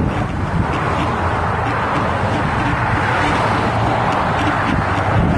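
Steady roadway traffic noise from a four-lane highway, an even rush with no single vehicle standing out.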